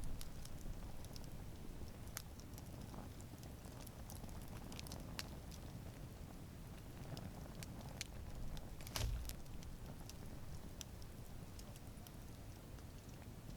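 Wood campfire burning, with scattered sharp crackles and pops over a low steady rumble of flame; the loudest pop comes about nine seconds in.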